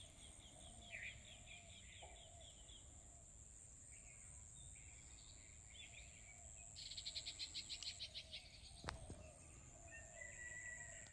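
Faint birdsong: a run of quick repeated chirps in the first few seconds and a fast trill about seven seconds in. Under it runs a steady high-pitched tone, and a single sharp click comes near nine seconds.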